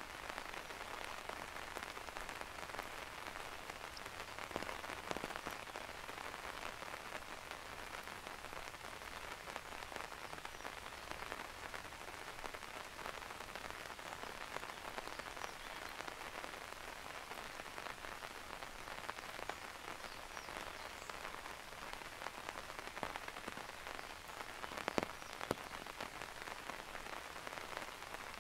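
Steady rain falling in a forest: an even hiss dotted with single drop hits, a few sharper ones about five seconds in and near the end.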